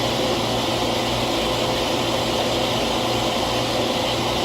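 Steady mechanical hum and rush of a running machine, unchanging throughout, with a low hum underneath and a faint steady tone above it.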